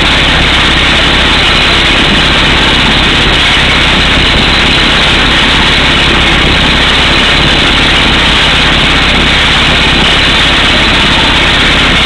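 Air hammer on a truck-mounted drill rig boring through solid rock, with the rig's engine running: a loud, steady, dense racket with no letup. Compressed air blows rock dust out of the hole as it drills.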